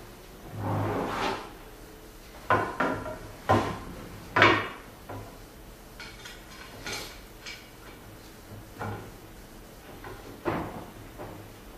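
Aluminium T-slot extrusion rails of a CNC table frame knocking and scraping against each other as they are fitted together by hand: a drawn-out scrape about a second in, then a few sharp knocks, the loudest a little over four seconds in, and one more near the end.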